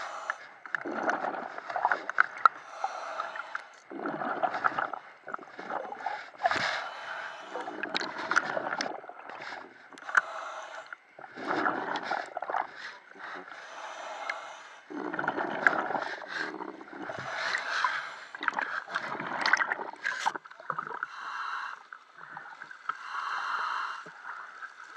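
Water bubbling and gurgling in irregular bursts, heard underwater around the diver, with sloshing near the end as the camera comes up to the surface.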